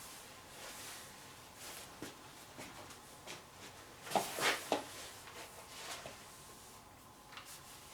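Irregular brushing and scraping strokes of sawdust being swept up, with a louder cluster of scrapes about four seconds in.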